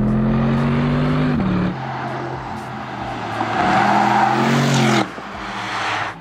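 Porsche Panamera Turbo S's twin-turbo 4.0-litre V8 running on track, its pitch climbing slowly before a sudden cut about a second and a half in. A second pass follows with a rising rush of engine and tyre noise that cuts off abruptly about five seconds in.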